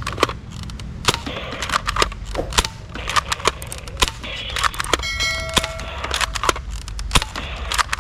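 Toy guns being handled and fired: a run of sharp plastic clicks and pops, with a brief electronic tone about five seconds in.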